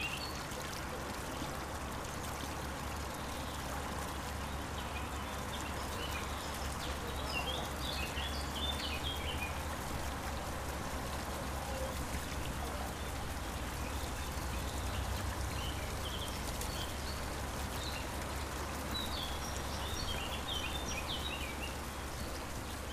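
Outdoor park ambience: a steady wash like trickling water, with birds chirping in short bursts about seven seconds in and again near the end.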